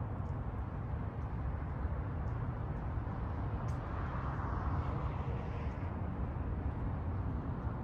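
Outdoor traffic noise: a steady low rumble, with a vehicle passing and swelling about four to five seconds in.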